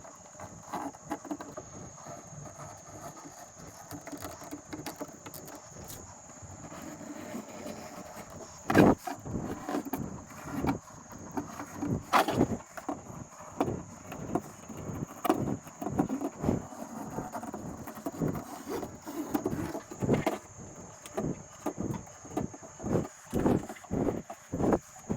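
Stanley knife slicing through the excess fly screen mesh around a screen frame: irregular short cutting and scraping sounds and small knocks of handling, with a steady high-pitched whine behind them.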